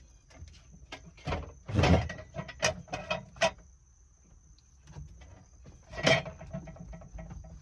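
Clunks, knocks and rattles from a VW Vanagon Westfalia pop-top roof being pushed up by hand, about half a dozen separate hits with the loudest about 2 s in and another about 6 s in; the roof is too heavy to open alone.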